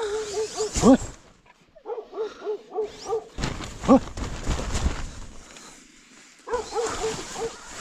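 Dogs barking loudly outside the tent: quick runs of short, high yelps, broken by two louder single barks. A few seconds of rustling noise come in the middle.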